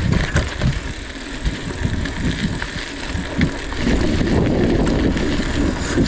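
Wind rumbling on an action camera's microphone while riding a mountain bike on a dirt road, with tyre noise and small rattles and ticks from the bike. The rumble grows louder about four seconds in.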